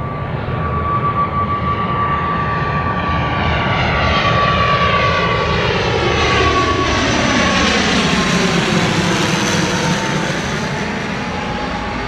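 ATR twin-turboprop airliner on approach with gear down, flying low overhead: a steady propeller drone with a high whine, growing louder towards the middle and then dropping in pitch as it passes.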